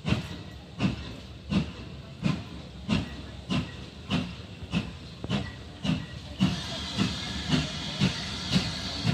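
Steam locomotive working with steady exhaust chuffs, a little under two a second and quickening slightly. From about six and a half seconds in, a steady hiss of steam joins the beats.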